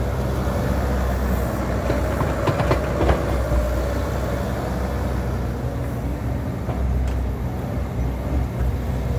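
Bobcat E42 mini excavator's diesel engine running steadily under load as its hydraulic arm digs and swings the bucket of dirt. A few knocks from the bucket and linkage come about two to three seconds in.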